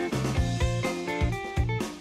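Background music: guitar over a drum kit with a steady beat.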